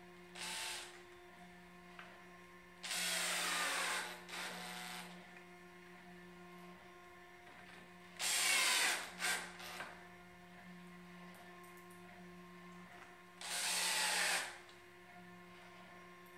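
Makita cordless drill/driver running in five short bursts, each a second or less, driving screws down through a plywood top; its whine drops in pitch during each burst as the screw bites, and two quick trigger blips follow the one about eight seconds in.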